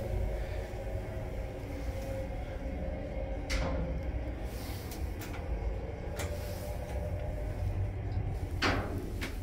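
Ride inside the car of a 2004 MP indirect hydraulic elevator travelling down. There is a steady low rumble with a faint steady hum, and a few sharp clicks, the loudest about three and a half seconds in and near the end.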